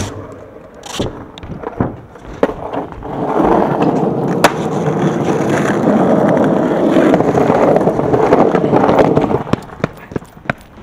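Skateboard wheels rolling on asphalt for several seconds, with sharp knocks of the board at the start and a quick clatter of knocks near the end as the ride stops.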